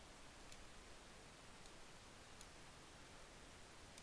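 Near silence: faint room tone with three soft clicks, about a second apart.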